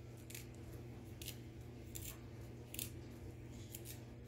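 Malunggay (moringa) leaflets being stripped off their stems by hand: about six faint, crisp little snaps spread over a few seconds, over a steady low hum.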